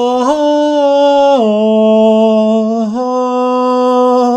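A voice singing one long, loud held note in three steps: it swells up at the start, drops lower about a second and a half in, then climbs back up about three seconds in.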